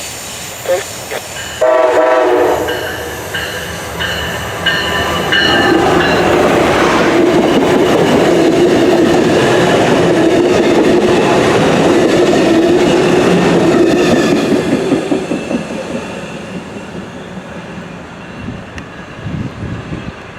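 MARC diesel passenger train blowing its multi-note air horn for several seconds, then running past with a loud rumble and clatter of wheels over the rails, which fades near the end.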